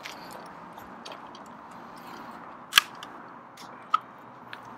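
LCT AKS-74 airsoft electric gun (AEG) with a stock gearbox firing single shots: a few short sharp cracks, the loudest nearly three seconds in and another about a second later, with a fainter one near the end.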